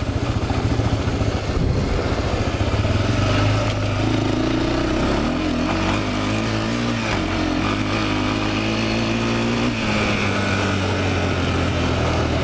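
Honda 400EX ATV's single-cylinder four-stroke engine running as it is ridden, its pitch rising and falling with the throttle between about four and ten seconds in.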